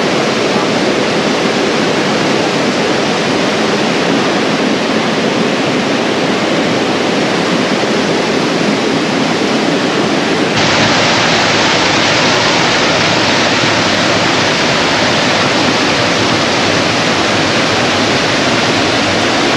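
Rushing water of a rocky jungle stream and its cascades, a loud steady wash of noise; about ten seconds in it turns abruptly brighter and hissier.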